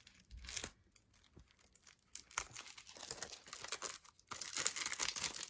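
Plastic packaging around a CD being crinkled and torn by hand, in dense crackling rustles that come in spells and are loudest near the end.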